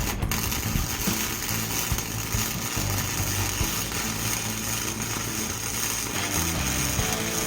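A power tool running steadily with a constant high hiss, over background music.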